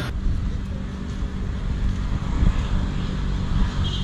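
Steady low rumble of a running motor vehicle, with wind noise on the microphone.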